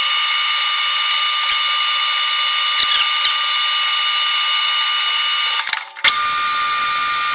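Machine spindle running with a chuck turning an aluminium rod while a turning tool cuts it, a loud steady whine of several high tones over a hiss. Just before six seconds in it drops out briefly and comes back with a higher whistle.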